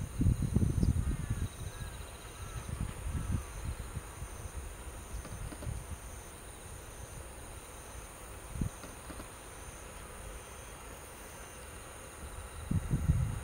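Insects chirring in a steady, high-pitched chorus, with wind rumbling on the microphone at the start and again near the end, and one brief thump about two-thirds through.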